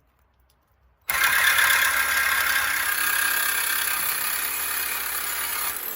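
Power tool cutting or dressing the steel rear frame horn of a Jeep Wrangler JK. It starts about a second in, runs loud and steady for about five seconds, then stops abruptly.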